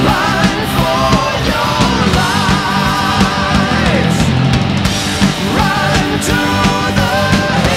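Loud hard rock music, with a dense steady low end under sustained, wavering lead notes.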